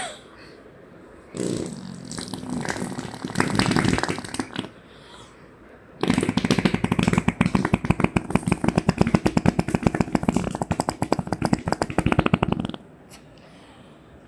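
A child blowing raspberries on a bare belly: lips pressed to the skin and buzzing with a rapid flutter. A shorter one comes about a second and a half in, then a long one of about seven seconds starting around six seconds in.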